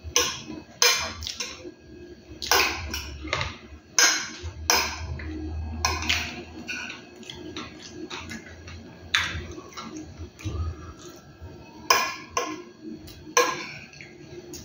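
Metal spoon scraping and clinking against a plate while eating, in about a dozen sharp, irregular clicks and scrapes.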